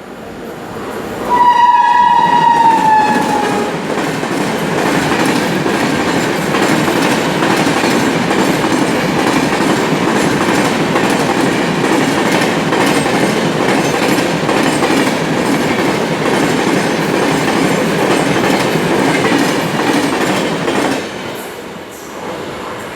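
Mumbai Rajdhani Express running through the station at speed without stopping. The locomotive's horn sounds once for about two seconds early on, its pitch dropping as it passes. Then the coaches rush by with a steady din of wheels on the track, which falls away sharply a couple of seconds before the end as the last coach clears.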